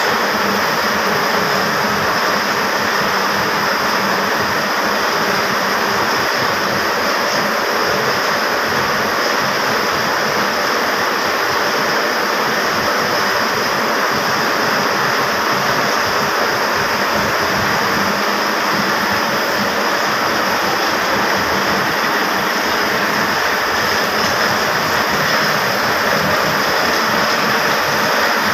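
Textile mill machinery running, with a large sectional warping drum spinning as it winds yarn: a loud, steady, dense mechanical din that does not change.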